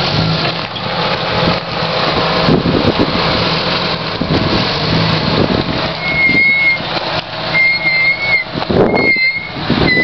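Lifted Jeep Cherokee XJ crawling slowly over rocks in low-range four-wheel drive, its engine running steadily at low revs with rough rolling noise. From about six seconds in, a short high whistle-like squeak sounds about four times.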